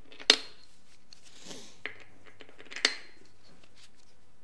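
Steel bolts and nuts clinking as they are handled and pushed into the bolt holes of a VW split-case gearbox case: two sharp metallic clinks about two and a half seconds apart, with a fainter tick between them.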